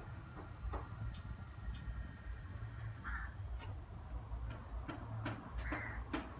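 Mercedes-Benz CLS500's M113 V8 engine running at idle with a low steady rumble, and a sharp ticking that grows more regular, about two to three ticks a second, in the second half.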